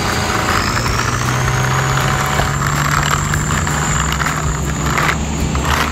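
Plastic toy tanker truck pushed by hand over rough asphalt, its small wheels making a steady gritty rolling noise, over a steady low engine-like hum.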